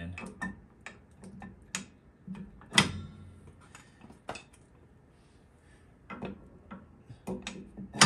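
Irregular metallic clicks and clinks as brake pads are slid into a Wilwood rear disc brake caliper, the sharpest about three seconds in.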